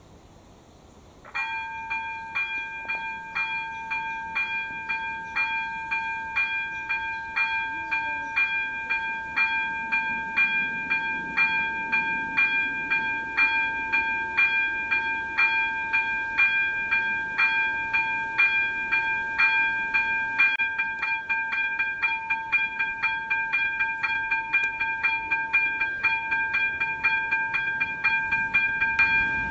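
AŽD E-bell ZV-02 electronic level-crossing bell switching on about a second in and ringing a steady ding-ding-ding of about two strikes a second, warning that a train is approaching. About two-thirds through, the strikes come twice as fast as the footage is sped up.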